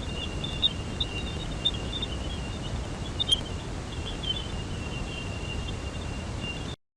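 Space sonification from NASA spacecraft data: a steady low hiss with a thin, constant high tone and scattered chirps above it, cutting off suddenly near the end.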